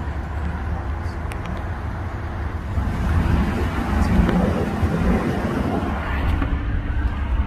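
Pickup truck's engine and road noise heard from inside the cab: a steady low rumble that swells a little midway through.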